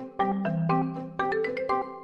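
Background music: a light, bouncy tune of struck mallet-percussion notes, several a second, over a low bass line.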